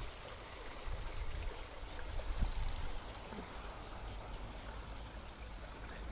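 Steady low wind rumble on the microphone with a faint even hiss, and a brief burst of fast, high-pitched ticking about two and a half seconds in.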